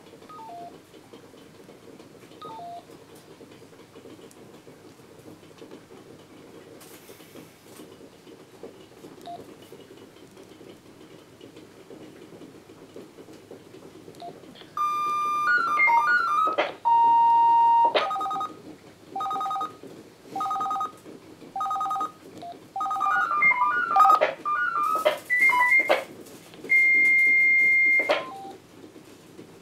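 Ericsson P500-series handheld radios signalling a selective call: a few faint keypad beeps, then about fifteen seconds in, rapid sequences of stepping tones, a held tone, a two-note alert repeated in short bursts several times, more rapid tone sequences, and a steady high tone near the end as the call is cleared.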